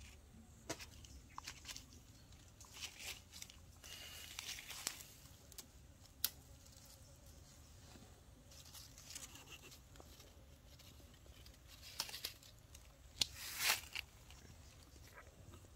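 Faint, scattered rustling and crackling of dry fallen leaves being handled, with a louder burst of crackling about thirteen seconds in.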